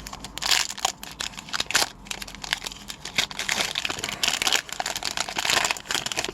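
Hockey card pack wrapper being torn open and crumpled: a steady run of irregular crinkling and crackling.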